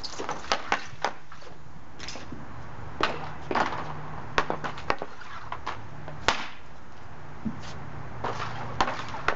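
Hockey stick striking pucks on a synthetic-ice shooting pad: irregular sharp clacks of stickhandling and shots, about a dozen, with the loudest near the middle.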